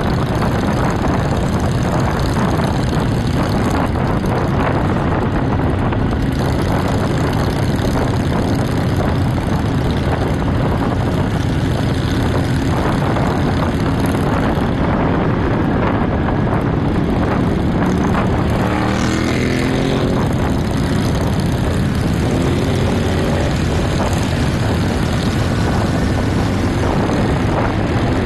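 Motorcycle engines running steadily at cruising speed in a group ride, heard from a moving motorcycle among cruiser bikes, with a steady rush of wind and road noise over them. The engine pitch rises a little a few times around two-thirds of the way through.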